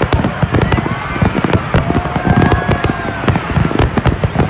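Fireworks display: a rapid, continuous barrage of bangs and crackling from many shells bursting at once.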